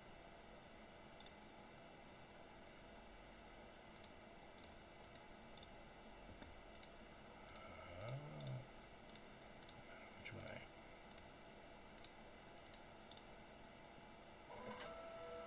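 Faint, scattered computer mouse clicks, single clicks a second or so apart, over quiet room tone.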